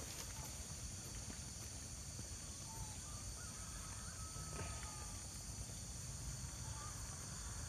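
Outdoor rural ambience: a steady high-pitched insect drone, with a few faint short bird chirps and light clicks.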